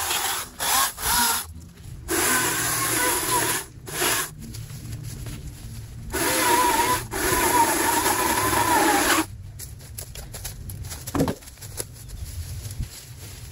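Electric chainsaw cutting saplings and brush in a series of bursts, its motor whine wavering in pitch and stopping between cuts. After about nine seconds the saw stops, leaving rustling and snapping of brush.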